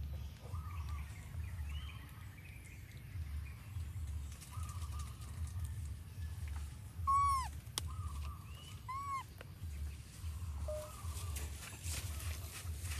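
Animal calls: two loud, arch-shaped calls rising and falling in pitch about two seconds apart in the middle, with several fainter, shorter calls of the same pitch before and after, over a steady low rumble.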